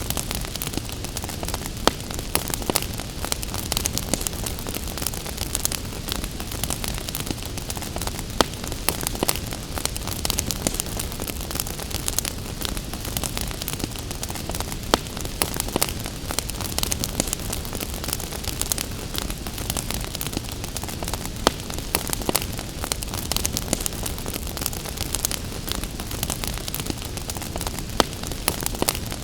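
Wood fire crackling, with frequent small snaps and a sharper pop every several seconds, over a steady hiss of gentle rain.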